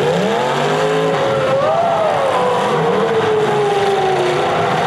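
Several demolition derby cars' engines revving and running together, their pitches gliding up and down over one another.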